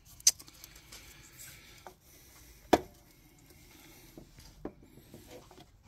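Two sharp knocks, about two and a half seconds apart, and a few faint ticks as the Kawasaki ZX-6R's stock exhaust muffler is twisted and pulled off its link pipe.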